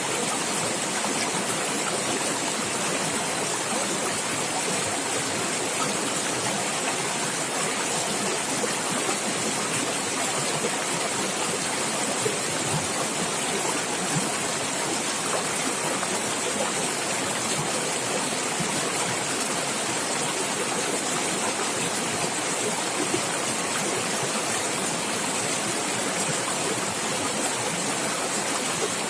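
Steady gurgling and splashing of a stream of running water, with small splashes here and there.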